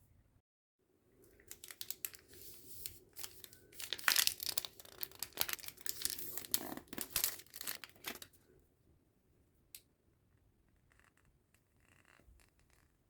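Packaging being torn open and crinkled by hand, a dense run of tearing and rustling for several seconds that dies away to a few faint rustles near the end.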